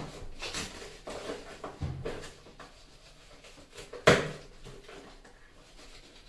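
A cardboard box of drinking glasses being opened by hand: soft rustling and light knocks, with one sharp, loud knock about four seconds in.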